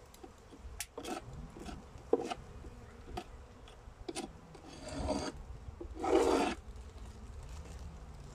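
Crinkling and rubbing of a woven plastic sack being handled over an open beehive, in a string of short rustles, with a longer, louder one about six seconds in. A faint hum of bees runs underneath.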